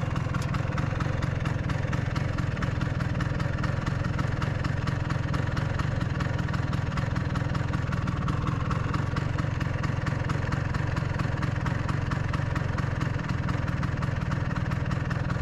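Vespa PX's single-cylinder two-stroke engine idling steadily.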